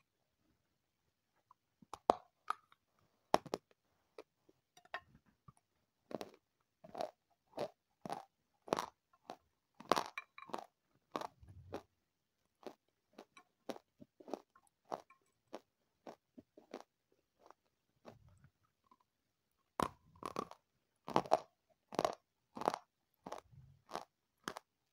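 Close-miked crunching and chewing of a crisp food, in many sharp separate crunches about one or two a second, with a short lull before a quicker run of crunches near the end.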